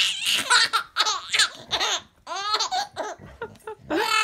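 A baby laughing, a run of high-pitched bursts of laughter one after another, with a longer one near the end.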